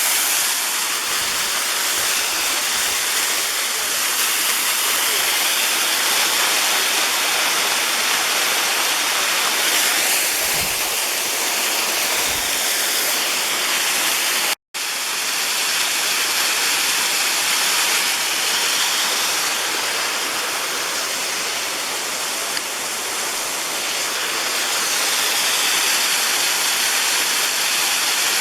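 Waterfall cascading, a steady loud rush of falling water, cut off for an instant about halfway through.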